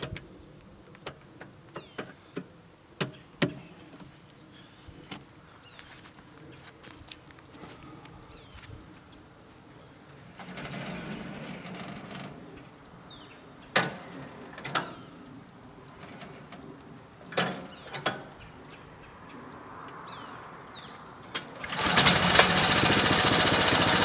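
Scattered sharp metal clicks and knocks as a log is set on a Wood-Mizer LT10 sawmill's track; near the end the mill's engine starts and runs steadily, much louder.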